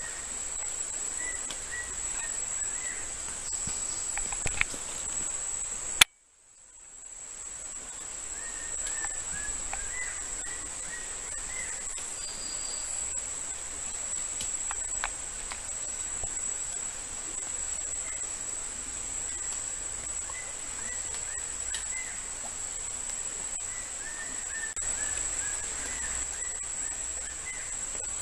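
A steady high-pitched insect trill with short chirps repeating in little runs. About six seconds in there is a sharp click, the sound drops out abruptly, and it fades back over a couple of seconds.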